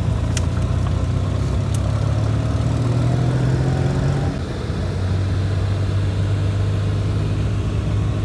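Car engine and road noise heard from inside the cabin while driving, the engine rising in pitch as the car accelerates over the first few seconds, then running steadily at speed.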